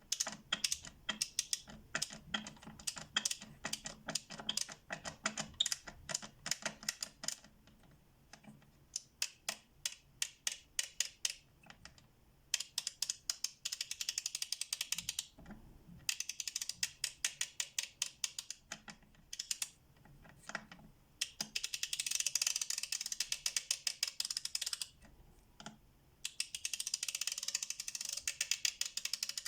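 FELO Ergonic K ratchet's pawl clicking over the gear teeth as the handle is swung, in runs of quick clicks. Several runs are so fast that the clicks blur into a near-continuous rattle.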